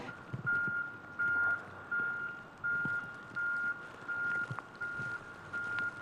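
Backup alarm on heavy snow-removal equipment reversing: a single-pitch beep repeating evenly, about three beeps every two seconds.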